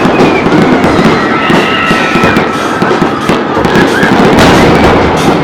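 Aerial fireworks going off in a dense, continuous barrage of bangs and crackling, with a few faint whistling glides.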